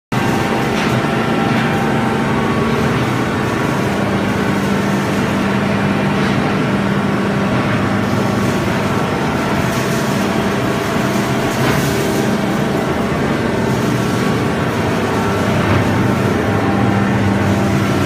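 Automatic baler running: a steady machine hum with a low drone, and a few short clicks and squeaks over it.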